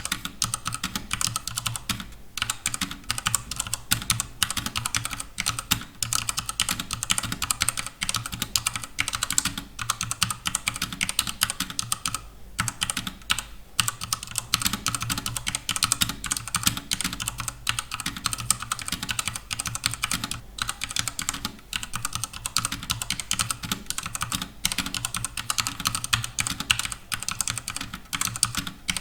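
Redragon K630 mechanical keyboard with HyperX pudding keycaps being typed on fast and steadily: a dense stream of keystroke clicks, with a few short pauses.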